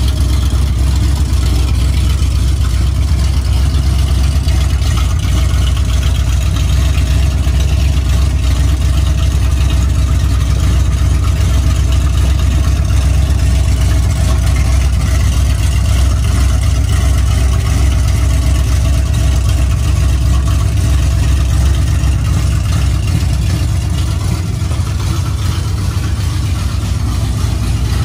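Engine idling steadily, the sound even and heavy at the low end.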